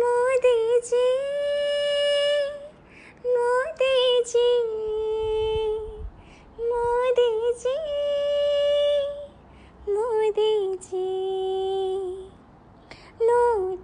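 A high female voice singing unaccompanied: long held notes, some sliding up or down, in phrases of one to three seconds with short pauses between them.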